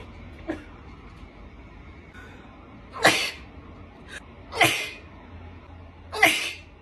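A person sneezing three times, about a second and a half apart, set off by a nasal swab for a COVID-19 test.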